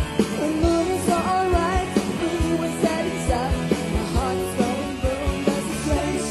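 Live pop-rock band music: a woman singing lead into a microphone over a steady drum beat.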